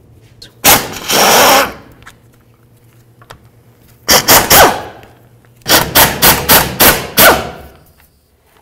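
Pneumatic impact wrench hammering the rusted differential cover bolts loose. It gives one burst of about a second near the start, three short bursts about four seconds in, then a string of short bursts between about five and a half and seven and a half seconds.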